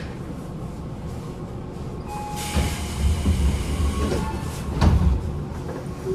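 Inside a Tobu 9050-series electric train car, with its air conditioning running under a steady low rumble. A short steady tone sounds about two seconds in, and two heavy low thumps follow, around two and a half and five seconds in.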